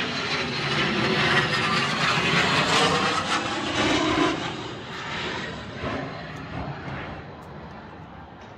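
A Patrouille de France Alpha Jet's twin turbofan engines as it flies low overhead on its landing approach. The noise is loud for about four seconds, its pitch falling as the jet passes, and then fades away.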